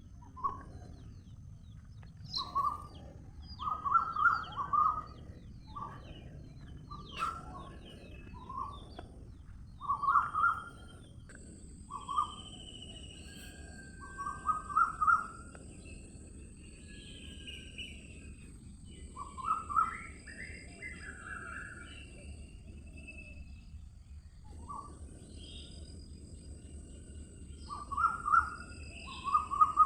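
Birds chirping in short bursts of a few quick notes every second or two, with other birds whistling higher at times, over steady background noise.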